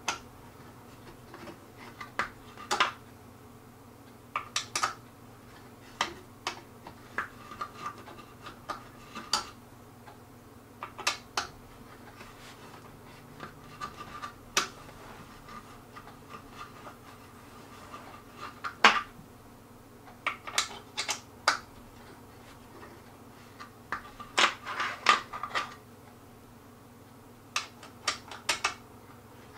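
Metal hand tool clicking and clinking against bolts as wooden table legs are tightened: irregular sharp clicks, some in quick clusters, over a faint steady hum.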